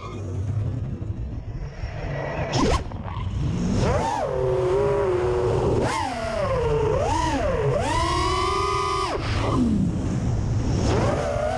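FPV racing quadcopter's brushless motors (Lumenier 2207 2700 kV, HQ props) whining, the pitch rising and falling sharply with throttle, over a low rumble of wind on the onboard camera's microphone.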